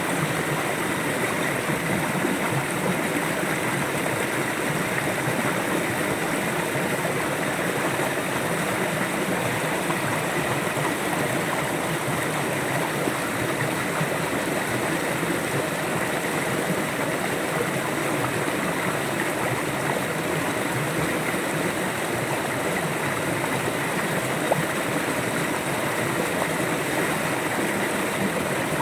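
River water flowing steadily, a continuous rushing over the stream bed.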